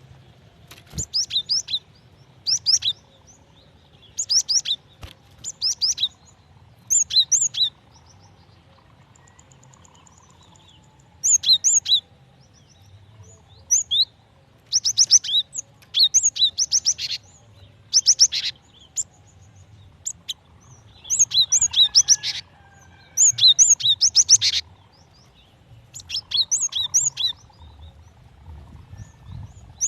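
Female cinereous tit calling: short bursts of rapid, high chirps repeated every second or two, with a pause of a few seconds about a third of the way through. It is the call of a female calling a male, used to draw males into song.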